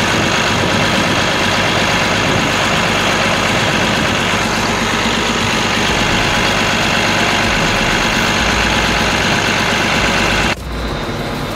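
Dongfeng Cummins 6CTAA8.3 diesel engine running steadily and loud, as on a test run after the overhaul. The sound drops abruptly to a quieter level near the end.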